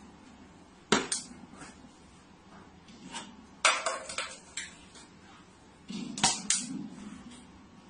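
A few sharp knocks and clicks of hard objects: one about a second in, a cluster around four seconds in, and two close together a little after six seconds.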